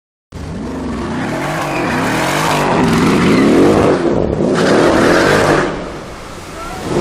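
Mercedes-AMG V8 revving hard with spinning tyres in a burnout, the engine pitch swinging up and down under a loud hiss of tyre noise. The hiss breaks off about four seconds in, returns, then the revs and level drop near six seconds.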